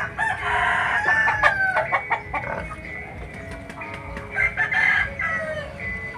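Rooster crowing: one long call in the first two seconds, falling in pitch at its end, and a second crow about four seconds in, with small clicks throughout.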